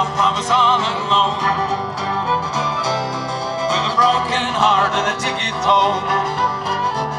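Fiddle playing a country or bluegrass tune with guitar accompaniment. The fiddle's notes waver and slide.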